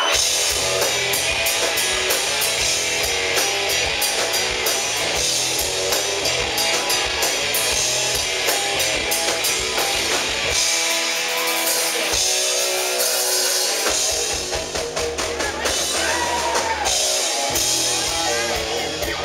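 Rock band playing live: two electric guitars, bass guitar and drum kit with frequent cymbal crashes. The bass end drops out briefly twice in the middle, then the full band comes back in.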